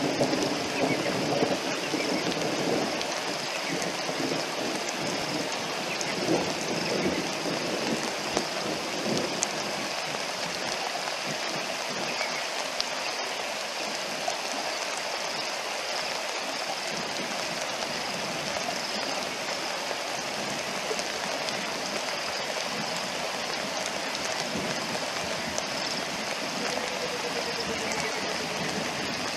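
Steady rain falling on shallow river water, an even hiss, a little heavier in the first ten seconds or so.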